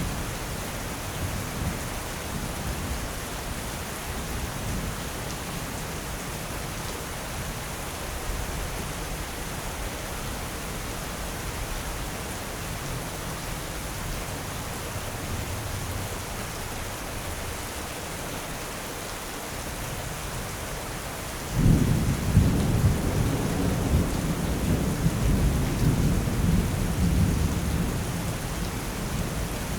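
Steady heavy rain with thunder rumbling low in the background. About two-thirds of the way through, a louder thunderclap breaks in suddenly and rolls on for several seconds.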